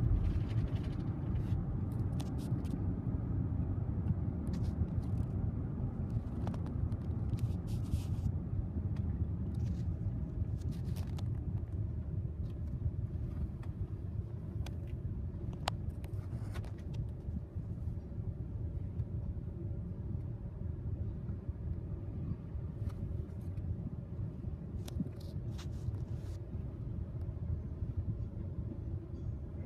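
Low, steady rumble inside a car's cabin as it slows and comes to a stop, with light clicks scattered through.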